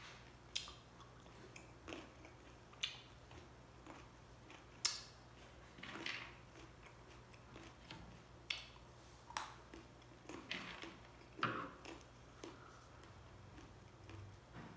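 A person biting into and chewing green grapes: short, sharp pops and clicks about a second apart, the loudest about five seconds in.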